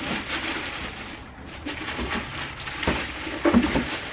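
Foam and cardboard packaging being handled and pulled out of a box, irregular rustling and scraping with a couple of short knocks.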